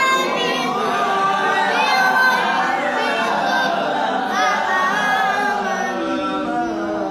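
A man's melodic Quran recitation (tajwid-style tilawat): one unaccompanied voice drawing out long ornamented phrases that glide up and down in pitch.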